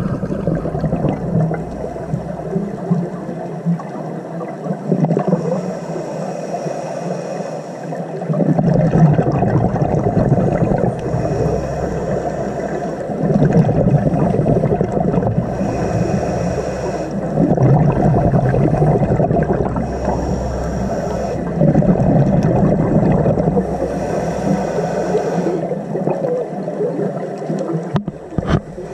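Scuba diver breathing through a regulator underwater: a hiss on each inhale alternating with a low bubbling on each exhale, in a slow, even cycle about every four to five seconds.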